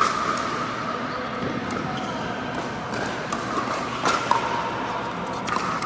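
Pickleball rally: sharp pops of paddles striking the plastic ball, spaced roughly a second or so apart, with voices in the background.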